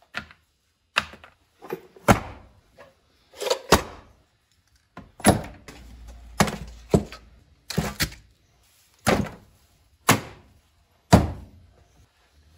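Tools and plastic cases set down one at a time on a workbench padded with shop towels: a dozen or more sharp knocks and thuds about a second apart, some in quick pairs.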